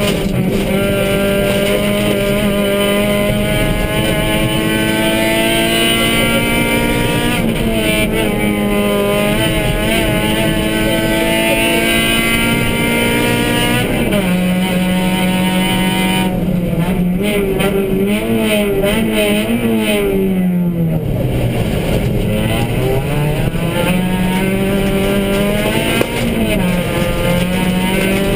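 Suzuki Swift rally car engine heard from inside the cabin, driven hard on a special stage. Its pitch climbs through the gears and drops back at each change, wavers unsteadily, then sinks low about twenty seconds in before climbing again.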